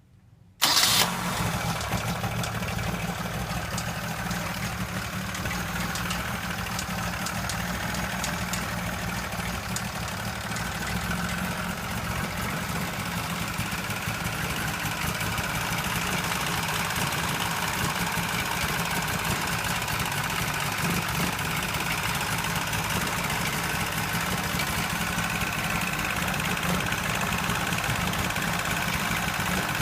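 Suzuki Jimny SJ30/LJ50 two-stroke three-cylinder engine, coming in suddenly about half a second in, then idling steadily. It carries an abnormal noise from around the crankshaft, which the owner takes for a failing crankshaft bearing.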